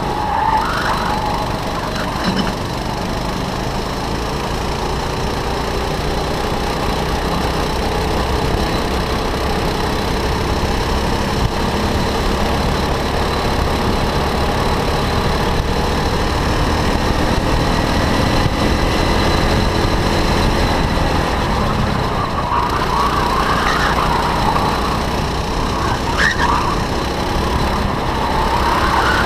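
Go-kart engine running hard under racing load, its pitch rising slowly along a straight and dipping and climbing again several times through the corners near the start and in the last few seconds.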